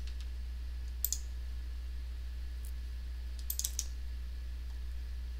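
Light clicking of a computer mouse and keyboard: a single click about a second in, then a quick run of several clicks around three and a half seconds in, over a steady low hum.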